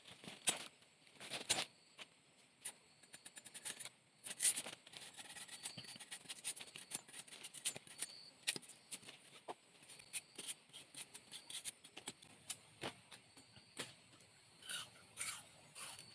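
Irregular sharp snapping and clicking of plant stems and leaves being cut and broken off, with a few louder snaps early on among many lighter ones.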